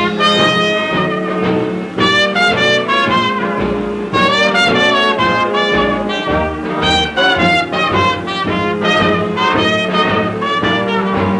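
1930s swing dance band playing an instrumental passage after the vocal, with trumpets and trombones in short phrases over a rhythm section, from a 1936 78 rpm record.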